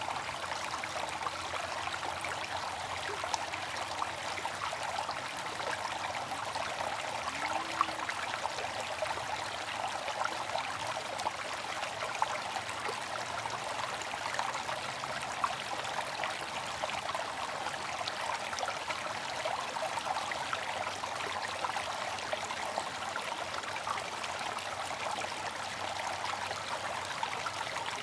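Bamboo water fountain: water trickling and splashing steadily into its basin, with a few brief louder drops.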